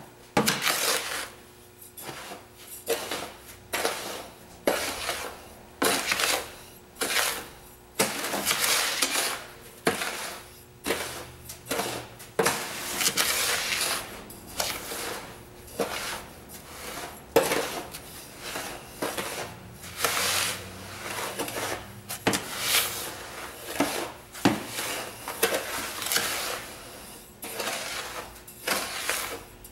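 Metal spoon stirring Epsom salts in a plastic tub: gritty scraping strokes, about one a second, as the crystals are mixed with turmeric and ground rosemary.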